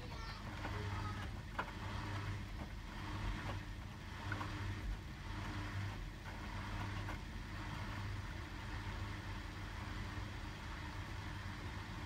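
Hotpoint WMFUG 942 front-loading washing machine, its drum turning wet laundry over with a steady low motor hum, a swish of the load and a few light clicks.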